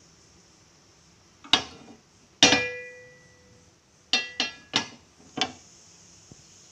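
Sharp metallic clinks and knocks of a nonstick tawa being handled and tilted on a gas stove, six in all: two loud ones, the second ringing on briefly, then four quicker ones.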